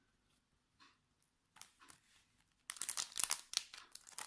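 A few faint taps, then from about two-thirds of the way in, dense crinkling and rustling of a foil trading-card booster pack wrapper being handled as it is opened.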